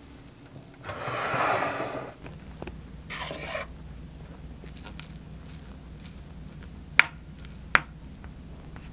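A rubbing scrape that lasts about a second, then a shorter hiss, then a few sharp clicks of chopsticks and a wooden spoon against a ceramic plate, two of them close together near the end.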